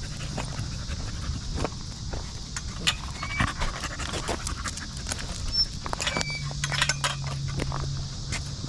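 A bully-breed dog panting, with scattered short clicks and taps. A low steady hum comes in about six seconds in.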